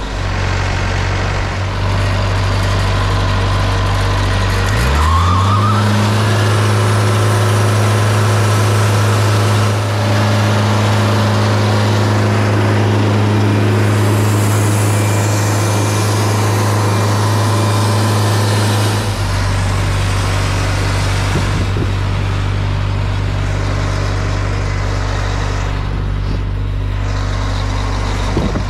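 Wood-Mizer LT50 sawmill engine idling, then revving up quickly about five seconds in. It holds at a steady high speed for about fourteen seconds, then drops back to idle.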